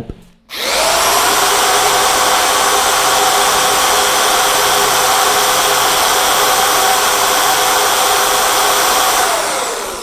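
Corded 350-watt electric drill switched on about half a second in, quickly reaching full speed and running with a steady whine as it spins a magnet rotor inside a microwave-transformer coil wired as a generator under short circuit. Near the end it is released and winds down, its pitch falling.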